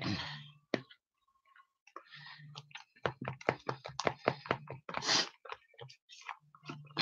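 Metal utensil beating batter mix and water in a plastic tub by hand: a quick run of clicks and taps against the tub, about six a second, from about three seconds in, with a few short swishes. It is being stirred to get the lumps out.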